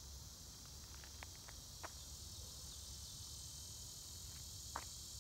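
Steady high-pitched drone of summer insects, crickets or similar, over a low rumble, with a couple of brief sharp clicks about two seconds in and near the end.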